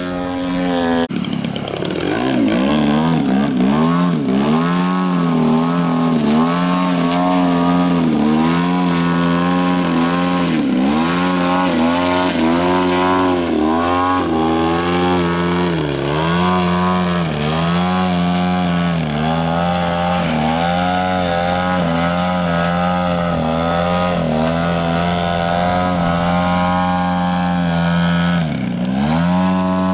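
Engine and propeller of an RC aerobatic airplane in flight, its pitch rising and falling as the throttle changes through the manoeuvres, with a sharp drop in pitch several times as it passes close by.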